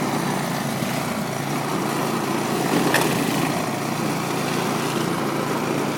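An engine running steadily with a constant low hum, and a short click about halfway through.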